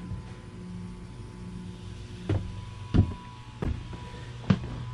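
A boat's air conditioner and its raw-water pump, just switched on, running with a steady low hum and a faint high whine as the pump draws marine antifreeze through for winterizing. About four thumps of footsteps on the deck come in over the second half, the last the loudest.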